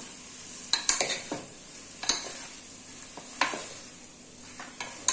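Metal spatula and steel spoon tossing noodles and vegetables in an aluminium pot, with about six sharp clinks of metal on the pot over a soft steady sizzle.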